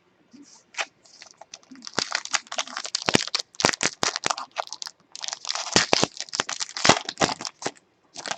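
Trading card pack wrapper being torn open and crinkled in the hands, a dense crackling that starts about two seconds in, pauses briefly midway, then goes on.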